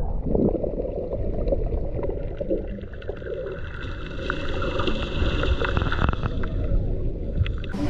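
Muffled churning of sea water heard through a camera held under the surface, a low dull rumble with the highs cut away. About halfway in, a faint steady high tone joins it.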